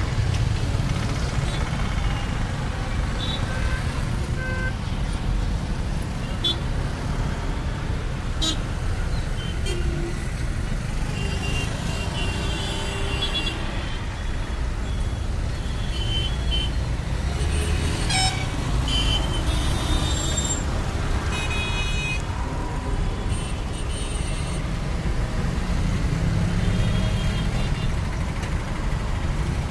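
Mixed city road traffic: a steady rumble of cars, auto-rickshaws and motorcycles driving past, with a run of vehicle horn honks in the middle.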